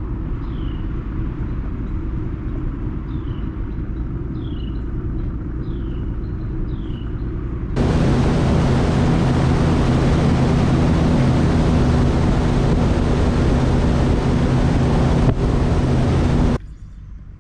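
Bass boat's outboard motor rumbling at low speed, with high falling chirps repeating about once a second. About eight seconds in it switches abruptly to the much louder run of the boat at speed, engine drone under rushing wind and water, which cuts off suddenly near the end.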